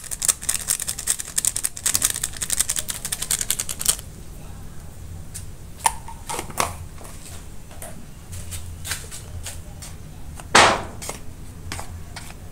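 Plastic-foil seasoning sachet crinkling rapidly as it is shaken and tapped out over a plate of flour. This is followed by scattered light clicks and one short, louder noise about two-thirds of the way through.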